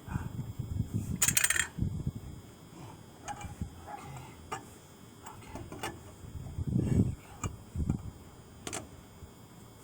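Lug wrench tightening a car wheel's lug nuts by hand: scattered metal clicks and knocks with dull thumps as the wrench is fitted and turned, the loudest scrape about a second in.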